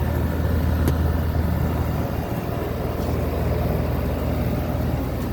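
Steady low mechanical rumble of a motor running, with an even hum and no change in pace.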